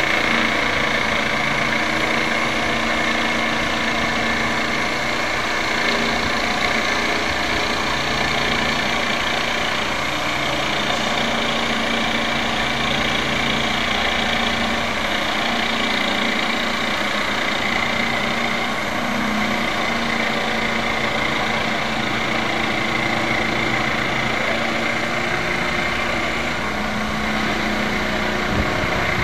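Corded electric jigsaw running steadily, its reciprocating blade cutting a curve through a plywood sheet to take out a round hole.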